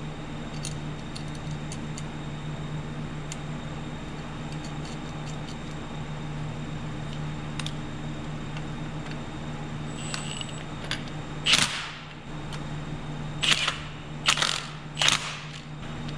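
Faint small clicks and knocks of bolts and hand tools being worked on a new planter shaft bearing, over a steady low hum. About two-thirds of the way in come several sharp knocks, roughly one a second, as the fastener is driven home.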